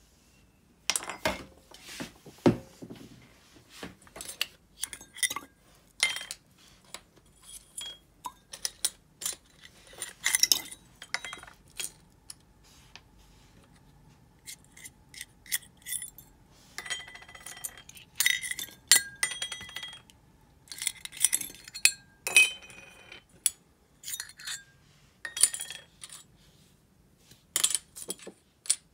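Small metal parts of a disassembled Abu Garcia Ambassadeur 5500 DA baitcasting reel clinking and tapping against each other and their container while being cleaned. The clicks come irregularly, and some ring briefly.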